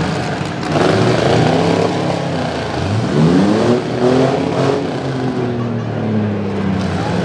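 Demolition-derby pickup truck engines revving hard as the locked-together trucks push against each other, their pitch rising and falling over and over.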